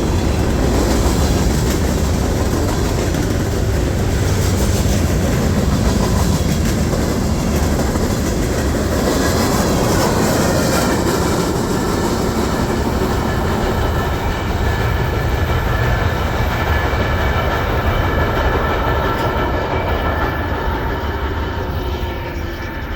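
Freight train rolling past close by, covered hopper cars with flat spots on their wheels, which sound as though every axle has one. Thin high wheel squeal comes in during the second half.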